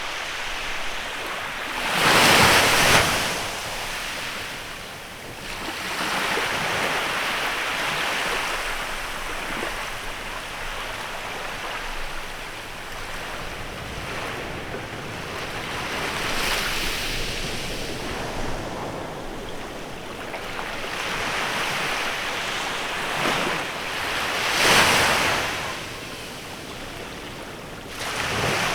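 Sea waves breaking and washing up a beach in a bay, coming in slow surges every several seconds. The loudest breaks come a couple of seconds in and near the end.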